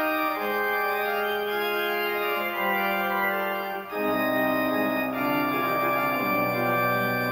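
Kegg church organ playing slow, sustained chords, the notes held and changing every second or so. After a brief break about four seconds in, deeper bass notes join the chords.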